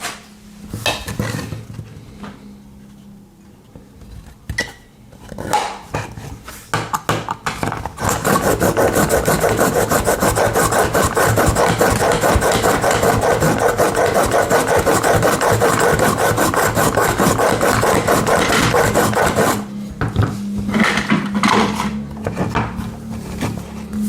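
A pocket knife blade being scraped rapidly back and forth through a handheld knife sharpener: a few scattered scrapes at first, then about eleven seconds of loud, continuous rasping strokes that stop abruptly, then a few more scrapes. The sharpener is failing to put an edge on part of the blade.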